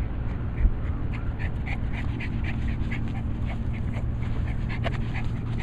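Miniature pinscher panting fast, about four quick breaths a second, having just run back across the field. A brief low thump sounds just under a second in.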